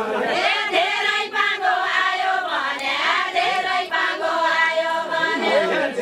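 A group of women singing a Deuda, the far-western Nepali folk song, together in chorus.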